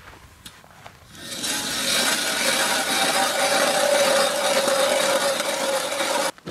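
Hand-cranked ice auger drilling into lake ice: its blades grind and scrape through the ice in a loud, continuous rasp. The rasp starts about a second in and stops abruptly near the end.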